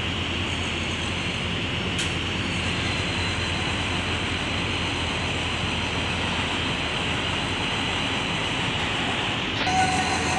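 Steady hum of road traffic and street noise, with no distinct events.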